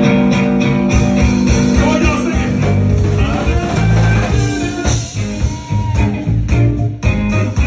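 Live band playing loudly: electric guitar lines over keyboards, steady low bass notes and drums.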